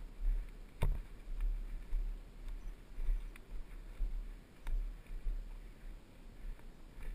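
Dirt bike rolling down a rocky trail, heard as muffled, uneven low bumping with a few sharp knocks and clicks as the wheels hit stones.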